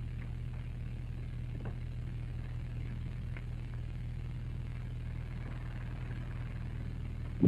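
Steady low mains hum and faint hiss from an old magnetic tape recording, with a few faint ticks.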